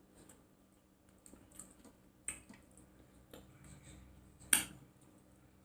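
Close-up eating sounds: wet chewing and scattered lip smacks and clicks, the sharpest about two seconds in and another, louder, near the end.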